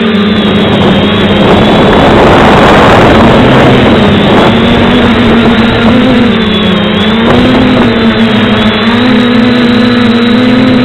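FPV multirotor drone's motors and propellers whining steadily and loudly, the pitch wavering up and down with throttle. About two to four seconds in a louder rush of noise swells over the whine.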